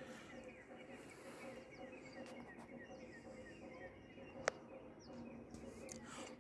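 Faint outdoor morning ambience: small birds chirping over and over in short falling notes, over a steady low hum, with a single sharp click about four and a half seconds in.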